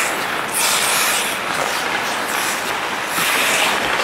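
Ice hockey skate blades scraping and carving on the ice, with two louder scrapes of spraying ice about half a second in and about three seconds in.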